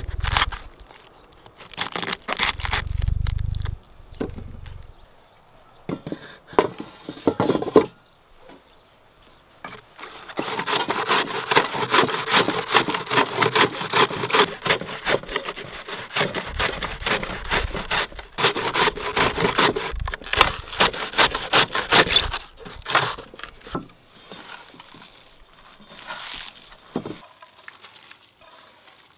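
A knife cuts into a head of white cabbage on a wooden cutting board in separate strokes. About a third of the way in, a long run of rapid repeated strokes begins: a cabbage half is rubbed back and forth over the blade of a wooden cabbage shredder. It stops about three quarters of the way through and gives way to softer rustling as the shreds are handled.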